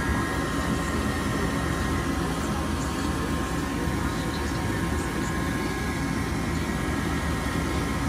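Gas furnace draft inducer motor running steadily at speed: a steady two-pitch whine over a broad rush of air.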